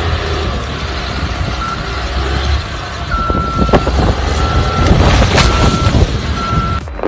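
Bulldozer diesel engine rumbling under load while its backup alarm beeps about once a second, with two sharp cracks about four and five and a half seconds in. The sound cuts off abruptly just before the end.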